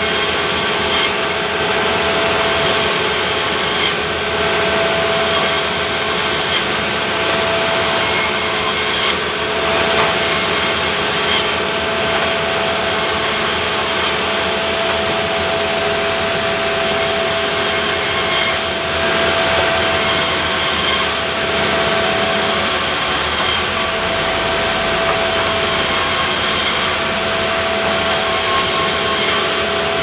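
Sawmill band saw running steadily and ripping planks of pulai wood as they are pushed through the blade: a continuous drone with a constant whine in it.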